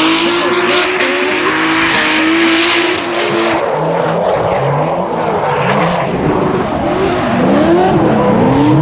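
Drift car engines at high revs, the pitch dropping and climbing again as the throttle is worked, with tyres screeching through the first few seconds of a slide.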